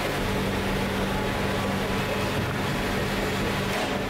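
Forge-shop machinery running: a steady, loud drone with a low hum.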